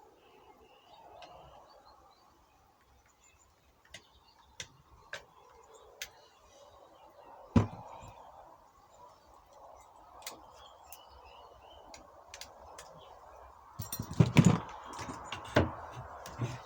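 Scattered clicks and knocks of hands working on plastic car parts, one louder knock about halfway, then a burst of loud clattering near the end. Birds chirp faintly in the background.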